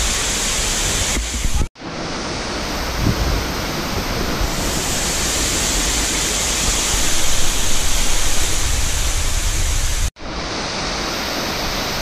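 Eden Falls waterfall pouring into its plunge pool: a steady rush of falling water, running strong. It cuts out for an instant twice, about two seconds in and near the end.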